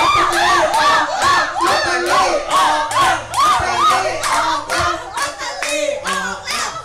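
A group of people clapping in time, about three claps a second, along with upbeat music that has a bouncing melody.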